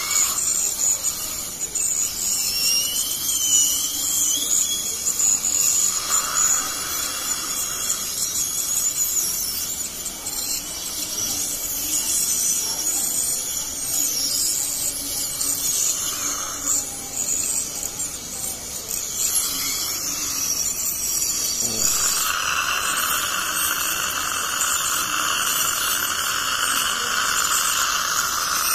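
Ultrasonic dental scaler running against the molars while scaling deposits off the teeth: a high-pitched whine with the hiss of its water spray. About three-quarters of the way through the sound turns steadier.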